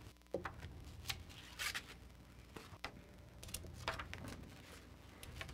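Papers rustling and being handled, in short scattered rustles and clicks over a steady low hum.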